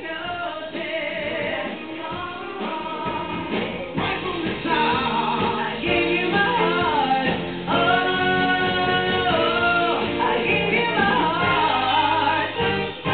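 A man and a woman singing a duet into microphones over instrumental accompaniment, with one long held note about eight seconds in.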